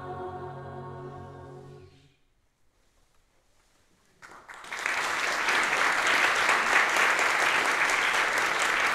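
Mixed a cappella choir holding the final chord of an Orthodox hymn, which fades away about two seconds in. After about two seconds of near silence, the audience starts applauding and keeps clapping steadily.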